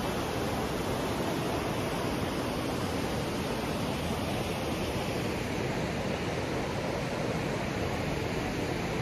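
Shallow mountain river rushing over rocks, a steady even roar of white water.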